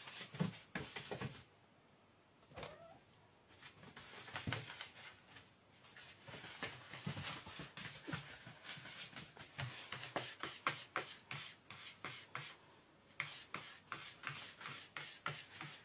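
Cats' paws scrabbling and skittering through spilled granulated sugar on a floor: a rapid, irregular run of small ticks and scrapes, with a few brief lulls.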